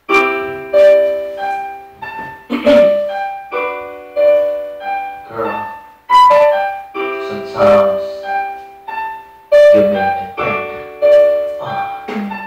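Piano intro of an R&B instrumental: chords and a melody line, struck notes fading after each stroke, a new chord about every one and a half to two seconds. It comes in suddenly after silence.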